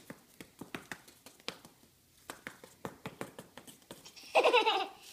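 Light, irregular tapping and patting on foam puzzle mats, then about four seconds in a toddler's loud, wavering squeal.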